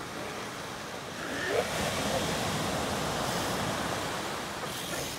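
Ocean surf breaking and washing up the beach, swelling about a second and a half in and easing off near the end.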